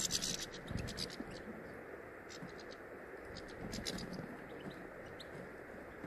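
Goldfinches and a greenfinch pecking and scrabbling through a feeder tray heaped with sunflower seeds: irregular clusters of dry clicks and rustles from seeds and husks. A steady low background noise runs underneath.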